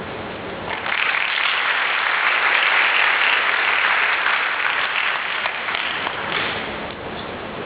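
Audience applauding: the clapping starts about a second in, swells, then thins out and fades toward the end.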